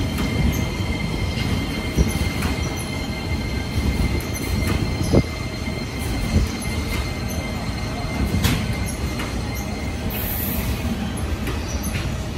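Container freight train's wagons rolling past at close range: a steady rumble of wheels on the rails, with occasional sharp clicks as wheels pass rail joints. A thin, steady high wheel squeal rides over it and fades out about ten seconds in.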